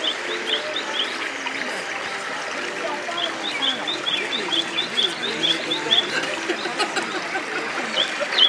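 Outdoor background chatter of many people, with a small bird chirping in quick runs of short high notes, about five a second, near the start and again from about three to five seconds in.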